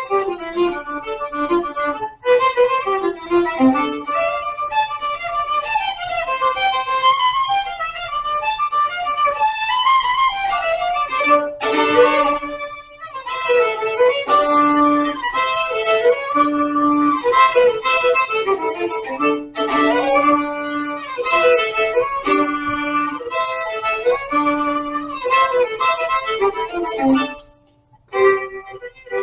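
Violin playing a quick, melodic tune with runs of short notes, breaking off briefly about two seconds in and again near the end.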